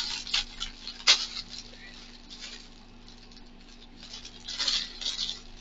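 Clear plastic packaging bag crinkling and crackling as it is handled and opened. There are crinkles at the start with a sharp crackle about a second in, a quieter stretch, then more crinkling near the end.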